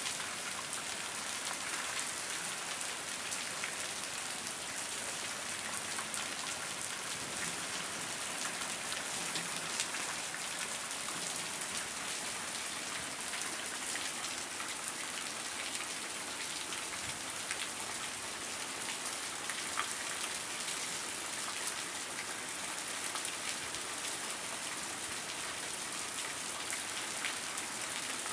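Heavy rain falling onto a water-covered street and lawn: a steady, even hiss dense with small drop splashes.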